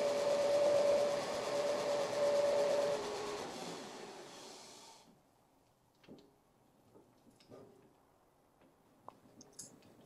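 Metal lathe turning a brass knob with a scissors-type knurling tool rolling on it: a steady running noise with a held whine. About three seconds in the lathe is switched off and the spindle coasts down to silence by about five seconds, followed by a few faint knocks.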